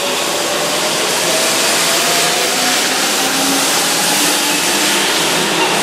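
Keihan 2400-series electric commuter train pulling out past the platform, with steady running noise and a motor whine that slowly rises in pitch as it gathers speed.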